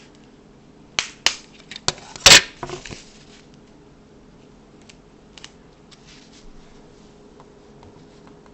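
Handling noise from taping cardboard fan blades onto a plastic tap light: several sharp clicks about a second in, then a short rasp of tape about two seconds in, followed by faint ticks.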